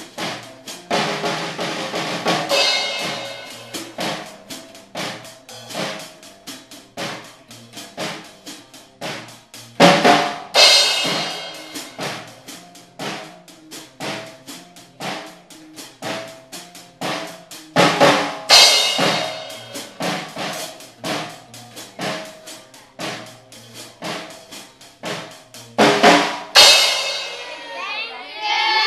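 A child playing a drum kit in a steady, rapid beat, with a cymbal crash about every eight seconds.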